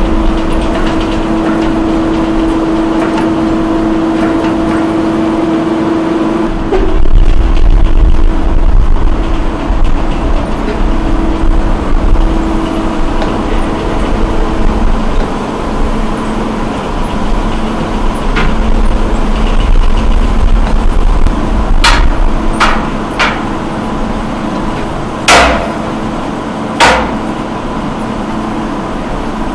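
Concrete batching machinery running: electric motors and belt conveyors carrying gravel give a steady hum over a low rumble, which grows heavier about seven seconds in. Several sharp knocks sound near the end.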